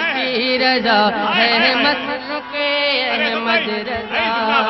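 A man singing an Urdu manqabat through a microphone, drawing a word of the line out into long ornamented runs, over a steady held note.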